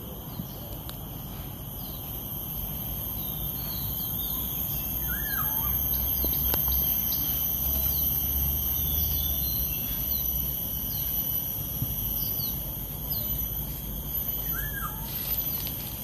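Steady high-pitched insect drone with birds chirping briefly about once a second; twice a louder bird call falls in pitch, and a low rumble swells in the middle.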